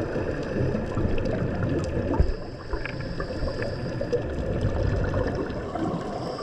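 Underwater ambience of scuba diving: regulator exhaust bubbles gurgling and rushing, a continuous uneven bubbling noise.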